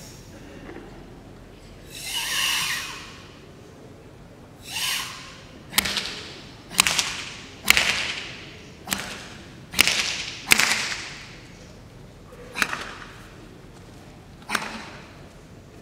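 Sharp open-hand slaps on bare skin during Sanchin shime, the instructor striking the karateka's back, shoulders and arms to test his tensed stance. About eight smacks come at uneven gaps of roughly a second, each ringing briefly in a large hall. Before them come two forceful hissing Sanchin breaths, each about a second long.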